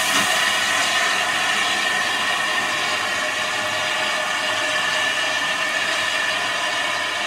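Small steam tank locomotive hissing steadily with escaping steam as it moves slowly along the platform.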